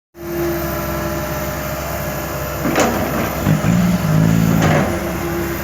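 Heavy diesel engine of earthmoving machinery running steadily, working harder for about a second from midway, with two short hisses about two seconds apart.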